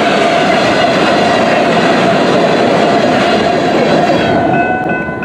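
A short freight train of covered hopper cars rolling past at speed: a steady rumble of steel wheels on rail with a ringing tone in it, dropping away about four seconds in as the last car goes by. A few steady high tones come in near the end.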